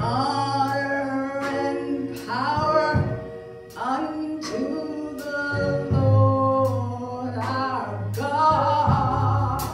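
Church gospel choir singing, several voices holding sustained notes together.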